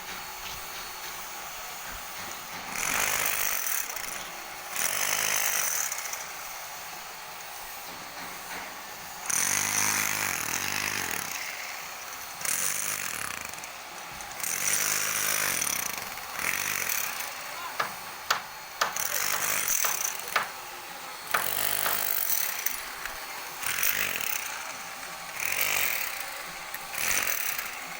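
A power tool running in repeated short bursts of one to two seconds with brief pauses between them, along with a few sharp knocks.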